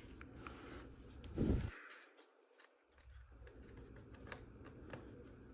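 Faint, scattered light clicks and taps of small plastic model-kit parts being handled and pressed together, with one soft low thump about a second and a half in.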